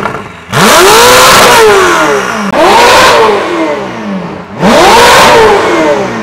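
Ferrari 488 GTB's twin-turbo V8 revved three times through a Fabspeed aftermarket exhaust, each rev climbing quickly and falling back more slowly.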